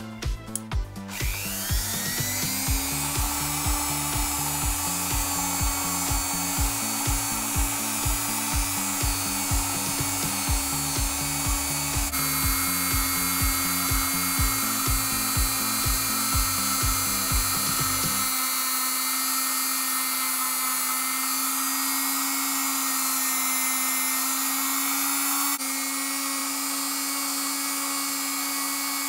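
Handheld rotary tool fitted with a small wire wheel, spinning up about a second in and then running with a steady whine as it brushes the steel parts of an old manual hair clipper. Background music with a steady beat plays under it until about two-thirds of the way through.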